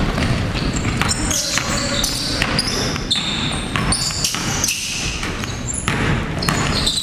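Live basketball game sound in a gymnasium: the ball bouncing on the hardwood floor in repeated sharp knocks, sneakers squeaking and players' voices, all echoing in the large hall.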